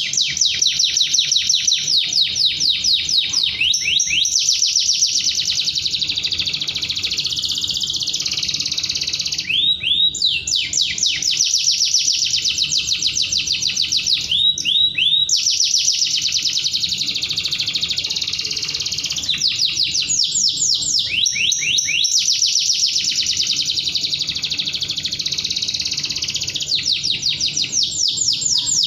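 Domestic canary singing a long, sharp song of fast trills that run into smoother rolls, in long unbroken phrases with short breaks about every five to six seconds.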